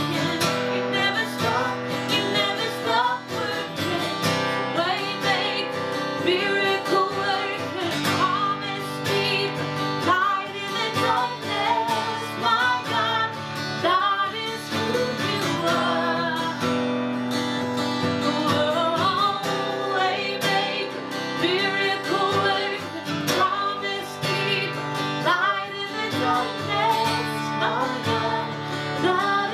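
Worship song with strummed acoustic guitar and singing over sustained backing.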